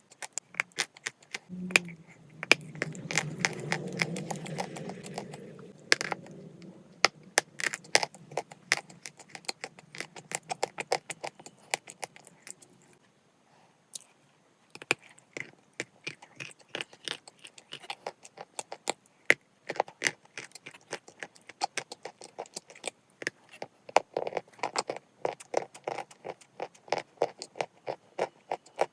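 Close-up crunching of pressed chalk (Glinkamel) being bitten and chewed: many sharp, crisp cracks and crackles in quick succession, pausing briefly about halfway. About two seconds in, a low hummed voice sounds for a few seconds under the crunching.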